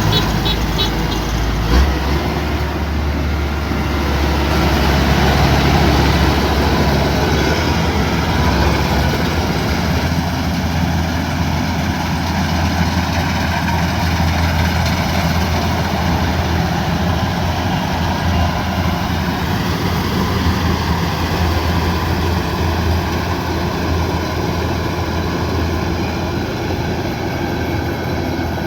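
Kubota DC108X combine harvester's diesel engine and threshing machinery running steadily under load, a loud constant hum and clatter; the low hum shifts in pitch about two seconds in.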